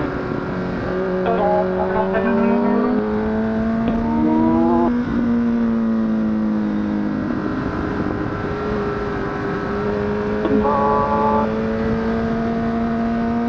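Honda CBR1000RR (SC57) inline-four engine running under load through a corner, its note climbing, dropping sharply about five seconds in as the throttle comes off or a gear changes, then holding and slowly rising again, with wind rush over it.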